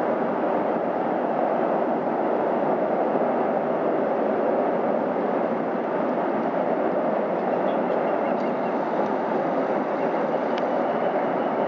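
Freight train rolling across a long steel trestle bridge: a steady, even rumble of cars passing, with faint high thin tones coming in over the second half.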